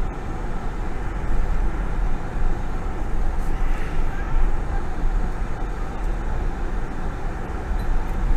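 Steady low rumble of a vehicle's engine and road noise, heard from inside the cab of a tow vehicle driving slowly with a small travel trailer behind.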